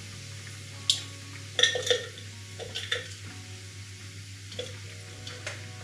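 A utensil scraping and knocking against a frying pan as cooked chestnuts are tipped out of it, giving several sharp clinks and knocks over a steady low hum.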